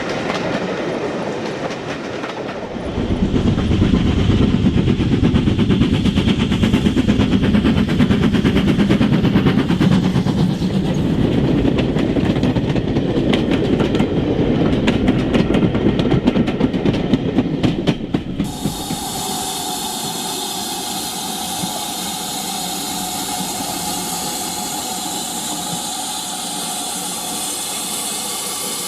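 An OO gauge model train runs on the layout's track: a dense rumble with rapid clicking of the wheels over the rail joints, growing louder about three seconds in. About two-thirds of the way through this cuts off suddenly to a steady hiss with a low hum.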